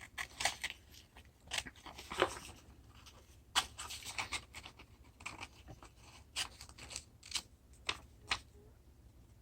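Scissors cutting paper: a series of short, sharp snips at irregular intervals.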